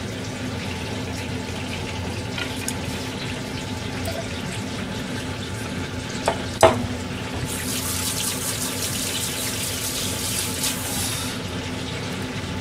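Kitchen sounds over a steady low hum and hiss. A sharp metallic knock comes about six and a half seconds in as a stainless steel mixing bowl is set down on a steel counter. Then a water tap runs for about four seconds.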